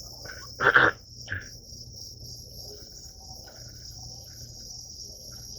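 Nebulizer running for asthma treatment: a steady high-pitched hiss with a low hum beneath it. One short loud burst of breath comes about a second in.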